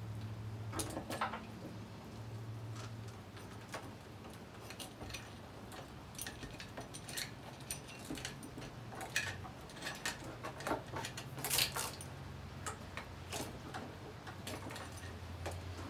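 Saw chain and a 20-inch chainsaw bar being handled: irregular clinks and rattles of chain links, with scattered clicks and knocks, over a low steady hum. The busiest, loudest rattling comes a little past the middle.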